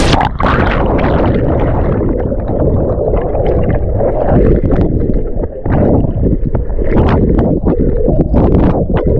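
Muffled churning and gurgling of waterfall water, heard as if from under the surface. Just after the start, the bright splashing rush cuts off suddenly, leaving a dull, low rumble with irregular small knocks and bubbling.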